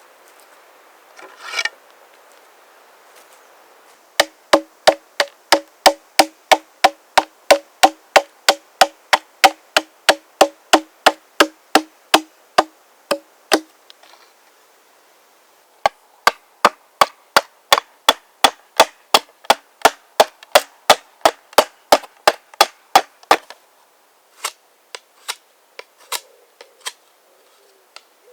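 Axe blows on wood, struck in quick regular runs of about three a second with a short pause between runs, then slower, spaced strikes near the end. The first run has a ringing tone to each blow.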